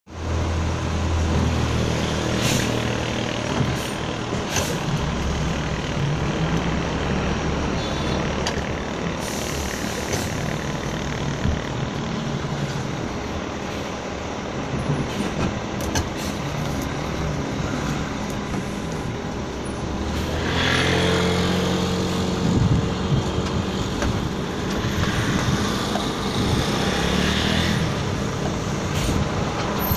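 Diesel engine of a large shuttle bus running as the bus reverses slowly, with several short hisses of its air brakes; the engine gets louder about two-thirds of the way through.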